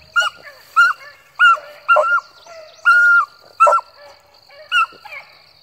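A beagle giving tongue on a rabbit trail: about seven short chop barks at a steady pitch, with one call held longer about three seconds in.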